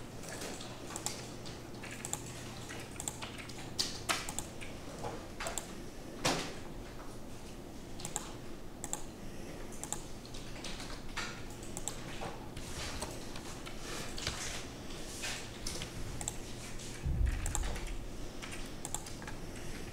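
Irregular clicking of a computer keyboard and mouse over a low steady hum, with a louder low thump about 17 seconds in.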